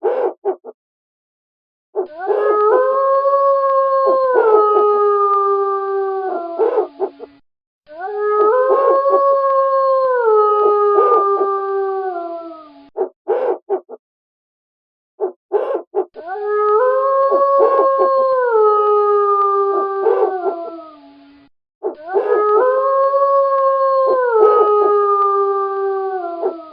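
Wolf howling: four long howls of about five seconds each, each rising at the start, holding, then stepping down in pitch before it fades. Short sharp sounds come in the gaps between the howls.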